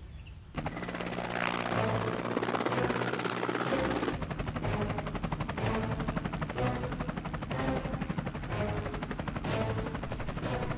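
Helicopter rotors chopping in a rapid, even beat, starting suddenly about half a second in and running steadily.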